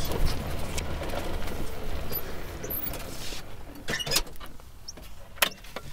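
Small electric utility vehicle rolling over a gravel path, a steady tyre-and-drive noise that dies away as it comes to a stop about three and a half seconds in. A few sharp clicks and knocks follow.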